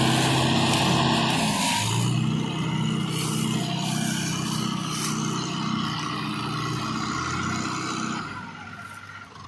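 Mahindra Yuvo 575 DI tractor's diesel engine working under load as it hauls a loaded sugarcane trolley, its note wavering up and down, then fading near the end.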